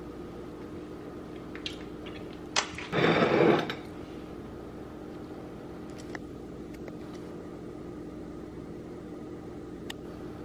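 Steady low hum in a kitchen, with a few light clicks of things being handled on the counter and one brief, loud burst of noise about three seconds in.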